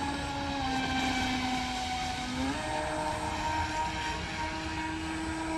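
Radio-controlled speedboat's motor running as a steady, pitched drone across the water. Its pitch sags a little, then rises sharply about two and a half seconds in as the engine speed picks up.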